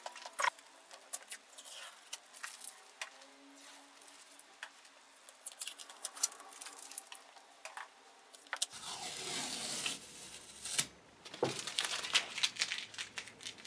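Paper masking tape and masking paper being peeled off a freshly painted steel anvil top and crumpled by hand: irregular crackling and rustling, with a denser stretch of tearing and rustling about nine seconds in.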